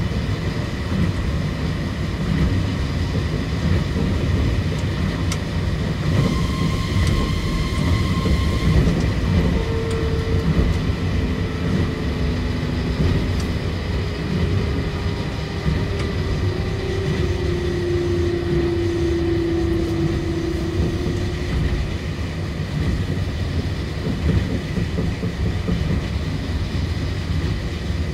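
Osaka Monorail 2000 series straddle-beam monorail car running along the guideway, a steady rumble from its rubber-tyred running gear. From about a third of the way through, a motor whine sounds and slides lower in pitch, fading out about three-quarters of the way through.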